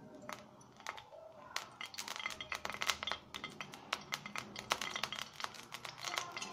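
Cooking oil heating in a frying pan, crackling and spitting with rapid, irregular pops that grow much denser about a second and a half in.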